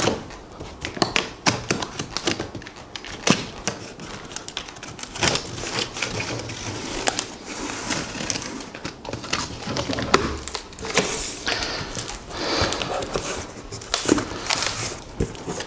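Large cardboard TV box being opened by hand: packing tape slit along the top and the cardboard flaps pulled apart, making irregular clicks, scrapes and rustles.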